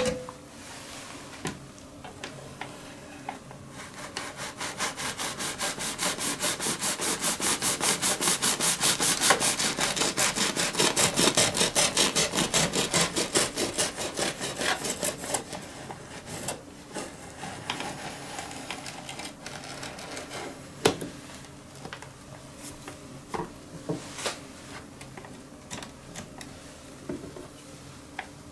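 Bread knife sawing down through a home-baked loaf held in a slicing guide, with quick, even back-and-forth strokes. The strokes grow louder over the first few seconds and are loudest around the middle, then turn quieter and more uneven, with a few sharp knocks in the second half.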